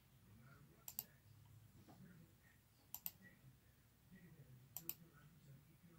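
Computer mouse button clicking three times, each a quick press-and-release double click: about a second in, about three seconds in and near the end.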